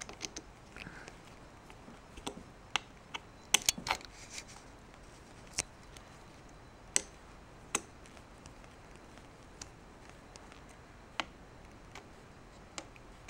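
Irregular small metallic clicks and ticks from a Phillips screwdriver turning a screw into a hole drilled in an old power steering gearbox input shaft seal, working the seal up out of its bore. A short flurry of clicks comes about three and a half seconds in, then single clicks every second or two.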